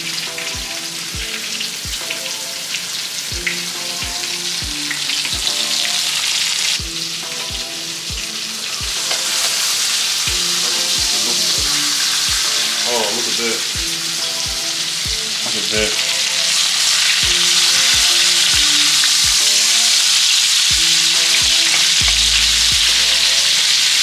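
Snakehead fish fillets sizzling as they fry in a cast-iron skillet, a steady hiss that grows louder about nine seconds in and again around sixteen seconds.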